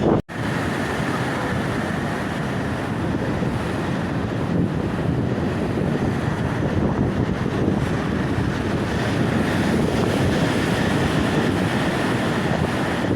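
Baltic Sea surf washing onto the shore, with wind buffeting the microphone; a steady rushing noise, briefly cut out just after the start.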